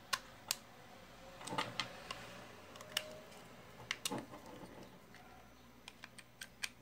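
Scattered small clicks and taps from an Abu Garcia baitcasting reel as it is handled and its screws are given a final tightening with a screwdriver.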